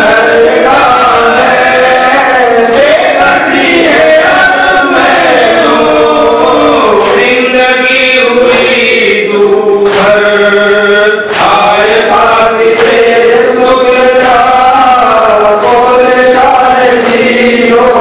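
Men's voices chanting a slow Shia mourning lament (noha) together into microphones, holding long, wavering notes.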